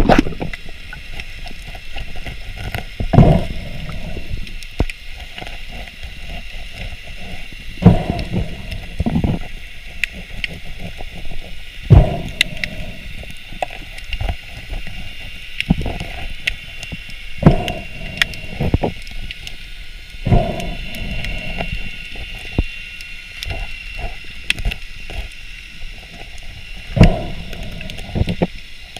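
Muffled underwater knocks and scrapes, heard through a camera housing, as a diver's knife pries a giant rock scallop off the rock. The thumps come irregularly every few seconds over a steady hiss with faint crackling clicks.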